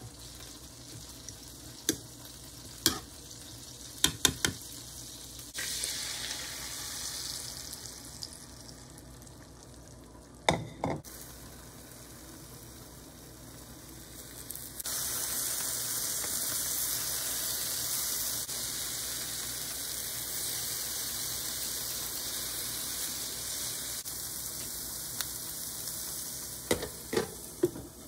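Egg omelette with spinach and tomato sizzling in a frying pan, the sizzle growing louder about halfway through. A silicone spatula knocks and scrapes against the pan a few times.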